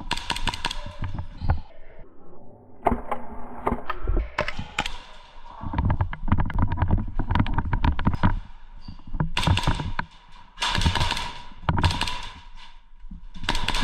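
Airsoft guns, likely HPA-powered, firing in rapid bursts of sharp clacks, mixed with knocks and thuds.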